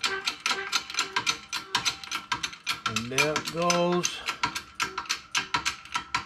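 Rapid, even mechanical clicking, about five a second, with a short ringing note on each click, from the bearing press being worked to force down the PTO clutch pack's spring and retainer. About three seconds in, a pitched sound rises and then holds for about a second.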